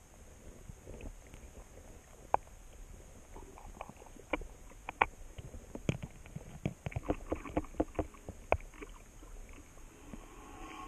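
Irregular sharp clicks and taps over a low, wind-like rumble. The clicks grow much busier about halfway through.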